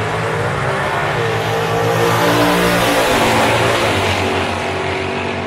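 Drag-racing cars' engines at full throttle, running loud and steady as they make a pass down the strip.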